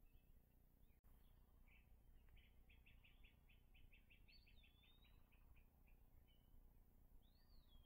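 Faint songbird singing: a run of quick repeated notes, about five a second, that slows and fades, followed by two short whistles that rise and then fall.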